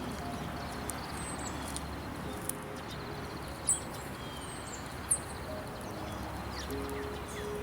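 Songbirds chirping over a steady rushing hiss, with two sharper, brighter chirps around the middle. Faint footsteps on the snowy trail tick about once a second.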